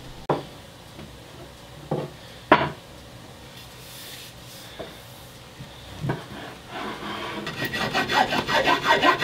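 A few separate knocks in the first six seconds. Then, about seven seconds in, a Japanese saw rasp starts filing a wooden axe handle in quick, rhythmic strokes that grow louder, thinning the handle where it comes through the axe head.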